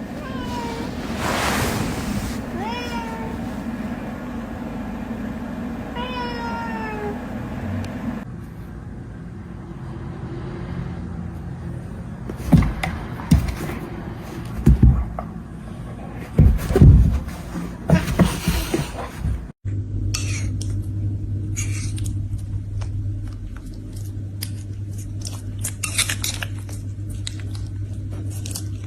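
Domestic cat meowing: several calls that fall in pitch in the first few seconds. Then a run of loud knocks and thumps, and after an abrupt change a steady low hum with faint clicks.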